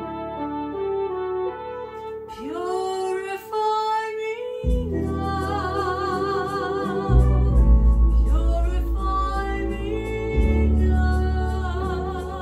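A woman sings a slow worship song with vibrato, accompanying herself on an electronic keyboard. Held keyboard chords play alone at first, her voice comes in with a rising glide about two seconds in, and deep bass notes join about halfway through.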